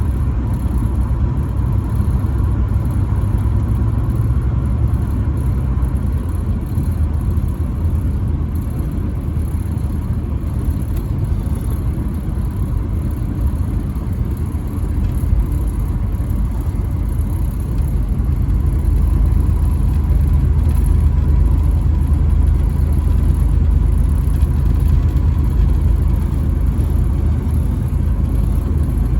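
Truck driving on the highway: a steady low engine and road rumble that grows a little louder about two-thirds of the way through.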